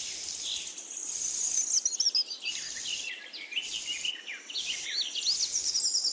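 Songbirds chirping and trilling throughout, with short scratchy hisses about once a second as a wooden stick is drawn through sand in strokes.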